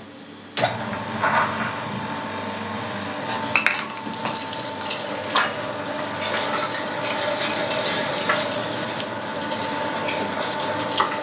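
Electric meat grinder starting about half a second in and running steadily with a constant motor whine as cured beef is pushed through its finest 3 mm plate, with a few sharp knocks.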